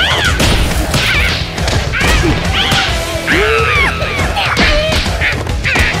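Cartoon slapstick fight: a string of high, squeaky character cries and yelps that slide up and down in pitch, mixed with whacks and crashes of blows, over background music.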